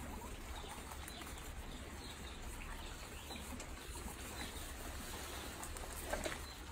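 A large group of guinea pigs feeding, with many soft overlapping squeaks and chatter and a louder call about six seconds in, over a steady low hum.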